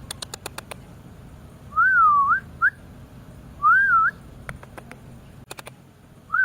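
Whistling: a wavy, rising-and-falling whistled note repeated about every two seconds, once followed by a short upward chirp. A quick run of clicks comes at the start, and a few more about five seconds in.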